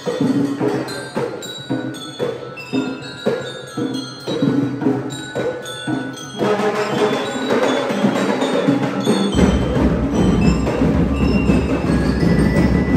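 Marching band of snare drums, bass drums and bell lyres playing. Ringing lyre notes sound over spaced drum strokes. About six seconds in the drums thicken into a dense, loud passage, and deep bass drum beats join a few seconds later.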